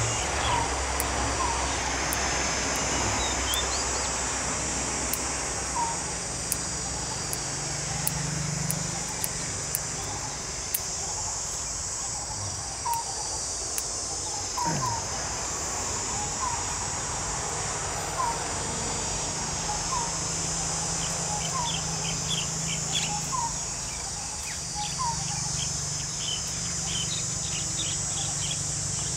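Steady high-pitched insect drone, typical of crickets, with a bird chirping about once a second and a quicker flurry of higher bird calls about three-quarters of the way in. Sharp clicks stand out now and then.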